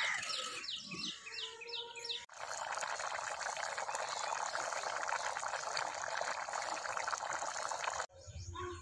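A pot of mutton curry boiling hard, a dense steady bubbling that starts abruptly a couple of seconds in and cuts off just before the end. Before it, a bird chirps a quick run of repeated falling notes.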